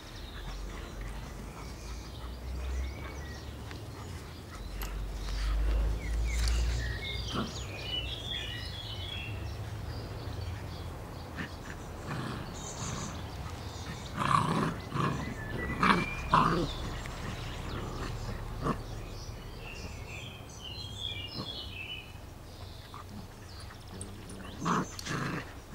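Irish Setter puppies and a cocker spaniel play-fighting, with short growls and yaps that come in a cluster about halfway through and again near the end.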